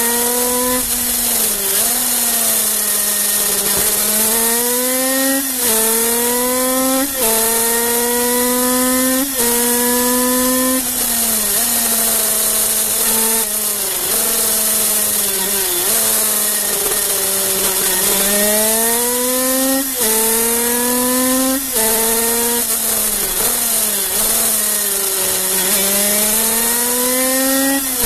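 Kreidler 50cc two-stroke racing motorcycle engine revving hard, heard from on board. Its pitch climbs and drops sharply at each of several quick upshifts, sinks as the bike slows for a bend partway through, then climbs again through another run of upshifts.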